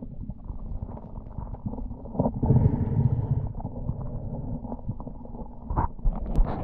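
Muffled underwater rumble of water stirred by a gloved hand fanning river gravel, louder for a moment about halfway through, with a few sharp clicks of stones knocking together, the loudest near the end.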